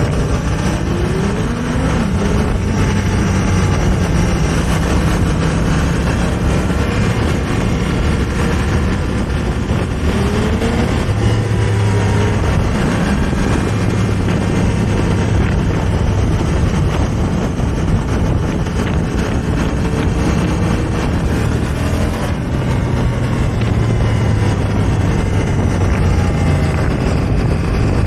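2018 Honda Africa Twin Adventure Sports' parallel-twin engine running under way, its pitch rising as it accelerates near the start and again about ten seconds in, mixed with steady wind noise on the camera microphone.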